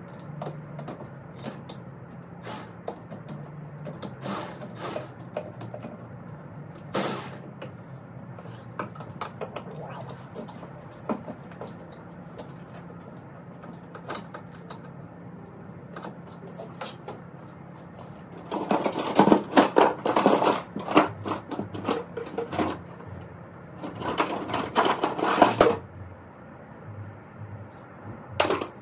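Hand tools working on a car engine: scattered metallic clicks and knocks, then two stretches of rapid ratchet clicking in the last third.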